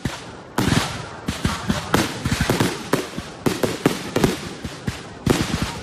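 Fireworks finale: a rapid, irregular barrage of loud bangs and shell bursts, many in quick succession, starting about half a second in and easing briefly near five seconds before picking up again.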